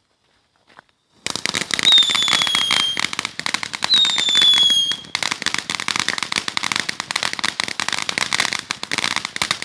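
A lit firework goes off about a second in with a rapid, dense crackling of pops that carries on steadily. Early in the display two high whistles each fall slightly in pitch over about a second.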